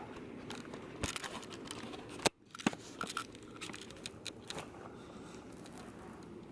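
Handling noise from a hand-held camera: rustling with scattered sharp clicks and knocks, the loudest a single sharp click a little over two seconds in.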